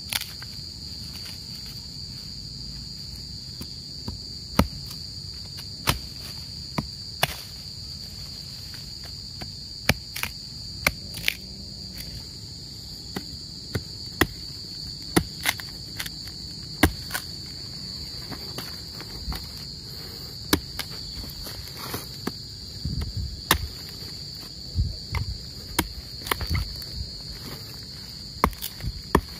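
A steady high chirring of crickets and other night insects, with sharp knocks every second or so from a blade chopping at a small tree trunk, coming thicker toward the end.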